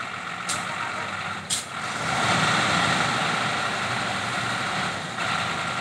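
Diesel engine of an Ashok Leyland borewell drilling rig truck running, with two short hisses of released air about half a second and a second and a half in. About two seconds in the engine grows louder and holds, easing back near the end.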